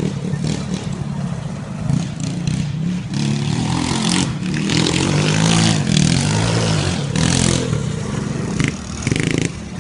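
Small gasoline engine running, its revs rising and falling again and again, loudest in the middle.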